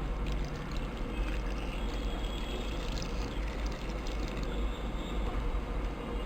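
Water being poured into a cooking pot of chopped tapioca, a steady pouring splash.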